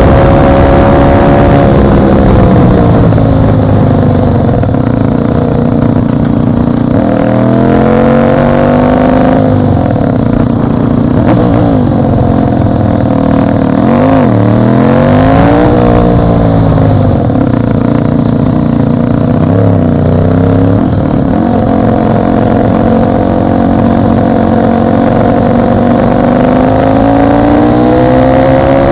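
Motorcycle engine running on the move, its note climbing and dropping with the throttle, with a couple of quick dips and rises around the middle and a climb near the end. Heavy wind rumble on the low-mounted microphone.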